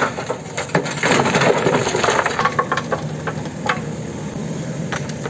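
Stones clattering as a JCB backhoe loader's bucket tips a load of rubble into a steel dump-truck bed: a dense rattle about a second in, then scattered knocks, over the steady hum of the diesel engine.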